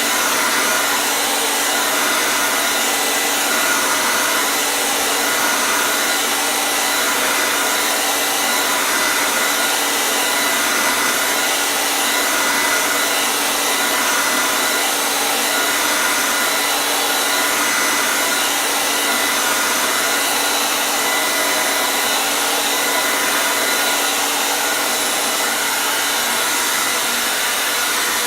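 Hair dryer running steadily, an even rushing air noise with a faint motor whine, unchanging throughout.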